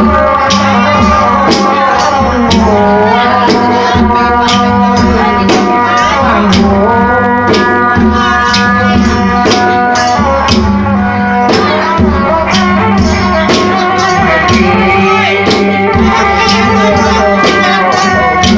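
Traditional ritual music for a Khmer-Surin mamuad spirit-medium dance: a melody with sliding notes over a low drum and regular, sharp percussion strikes.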